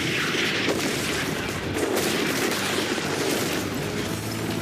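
Cartoon sound effect of a tree being torn out of the ground: a dense, continuous crackling and rumbling of earth and roots giving way.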